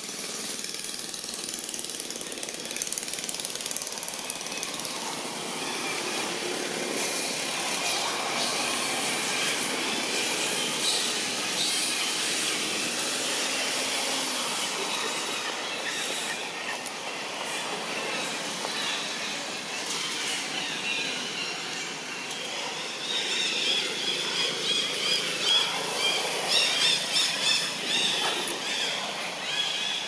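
Dense outdoor ambience: a steady high hiss and buzz that turns into a rapid, pulsing trill over the last few seconds.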